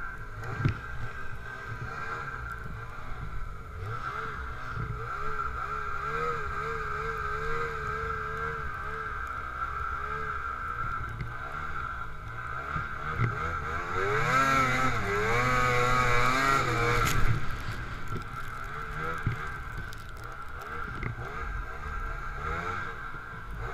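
Snowmobile engine running while riding, its pitch wavering with the throttle. A little past the middle it revs up to its loudest for about three seconds, then eases off.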